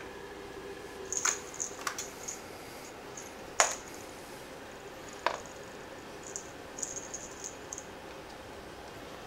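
A cat batting and pouncing on a feather-and-string toy on a wooden floor: a handful of sharp knocks and clicks, the loudest about three and a half seconds in, then a flurry of lighter ticks near the end, over a faint steady hum.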